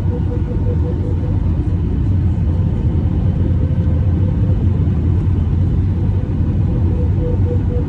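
Cabin noise inside an Airbus A319 airliner in flight: a steady, loud low rumble of engines and airflow, with a faint steady hum on top.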